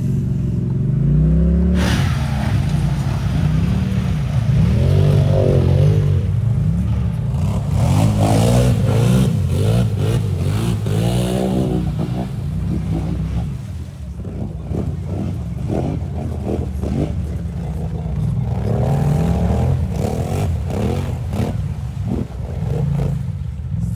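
ATV engine revving hard in deep mud, its pitch rising and falling again and again as the spinning tyres churn the quad through the bog.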